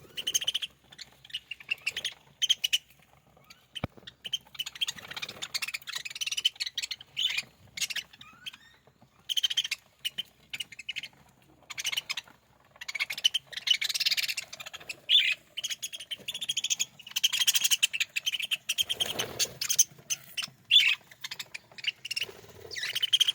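A flock of budgerigars chirping and chattering in short, irregular bursts of high calls.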